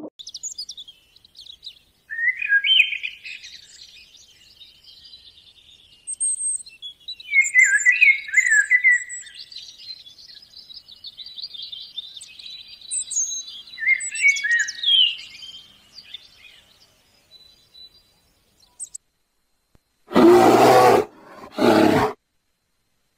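A male common chaffinch sings three short, descending song phrases, with fainter twittering between them. About twenty seconds in, a brown bear gives two loud growls in quick succession.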